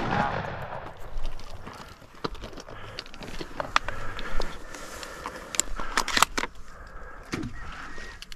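Hunters moving in dense brush: branches rustle, with scattered light clicks and knocks of handled gear, a cluster of them about six seconds in. A loud noise from just before fades out in the first second.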